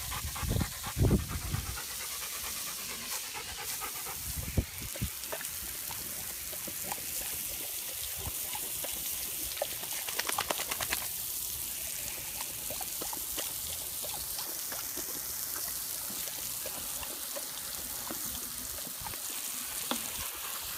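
Yellow Labrador retriever panting, heard close up from a harness-mounted camera, with water trickling and dripping off its wet coat. A few sloshing splashes in the first two seconds as it wades out of the pool.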